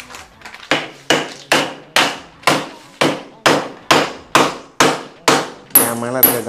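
A wooden rolling pin pounding a block of palm jaggery (karupatti) inside a plastic packet on a stone counter, to break it into pieces. The blows are sharp and even, about two a second.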